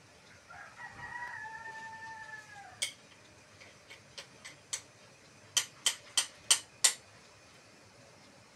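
A rooster crowing once, a single call of about two seconds that drops in pitch at its end. Then a run of sharp clicks: one loud, a few faint, and five loud ones in a row about three a second.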